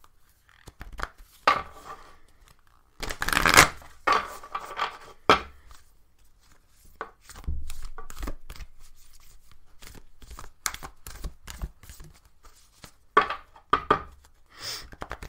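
A deck of oracle cards being shuffled by hand: a run of quick papery slaps, flicks and rustles, with louder bursts of shuffling about three seconds in and again near the end.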